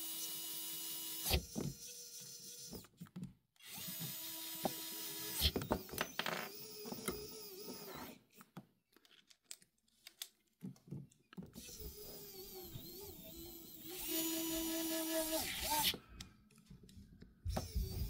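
Small cordless electric screwdrivers whining in several short runs a second or few long, starting and stopping, as they drive small hex screws into a carbon-fibre drone top plate.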